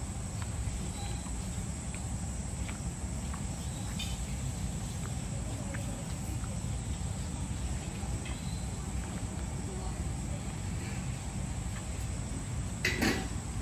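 Outdoor ambience: a steady low rumble with faint insect chirps and a few light ticks, and a brief louder sound near the end.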